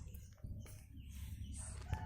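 A chicken calling faintly, its call starting near the end over low background noise.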